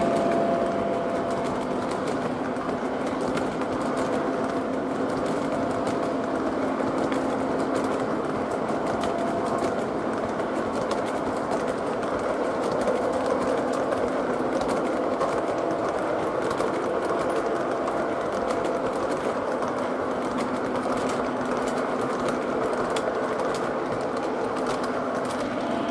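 O gauge model boxcars rolling on three-rail track: a steady rolling rumble of metal wheels with light, frequent clicking as they pass over the rails.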